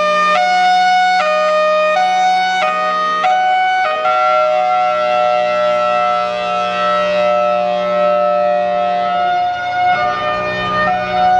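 Federal Signal Thunderbolt 1003 outdoor warning siren sounding its hi-lo alert, extremely loud. The tone flips between a higher and a lower pitch about every 0.7 seconds, holds a steady two-tone chord for about six seconds, then starts flipping again near the end.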